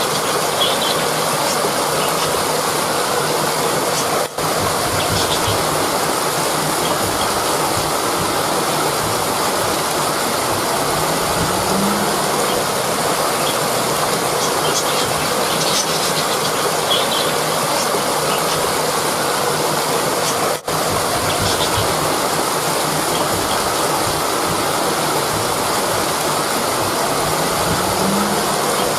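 Rushing river water, a steady, even rush of flowing water, with two brief dropouts in level.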